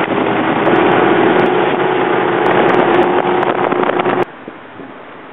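Twin outboard motors on a fishing boat running fast, a steady engine note under a loud rushing noise. The sound cuts off abruptly about four seconds in, leaving a much quieter background.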